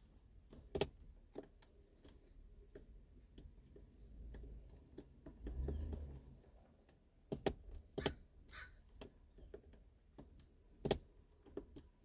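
Small waves lapping at the lake shore: scattered, irregular sharp clicks and plinks. A low rumble of wind on the phone's microphone swells about four to six seconds in.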